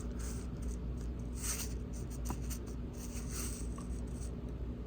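Faint rustling and light scratching over a steady low electrical hum.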